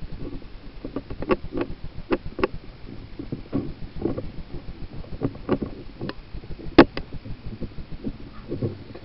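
Irregular scraping clicks and knocks right against a small camera's microphone, over a steady low rumble; one sharp click about two thirds of the way in is the loudest.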